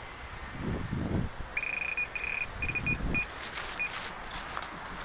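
Electronic fishing bite alarm beeping as line is taken: one long beep, then a run of short, irregular beeps, the sign of a fish pulling on the bait. Dull thumps and rustling from the camera being handled come before and under the beeps.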